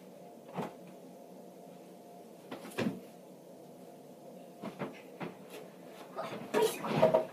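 Soft thumps and rustles of a stuffed toy monkey being slammed onto a blanket-covered bed and of a person landing on the mattress: a few scattered hits, then a quicker, louder flurry near the end.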